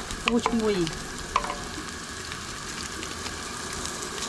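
Chopped shallots sizzling in hot oil in a nonstick wok, with a wooden spatula knocking and scraping against the pan in the first second and a half, then a steady sizzle.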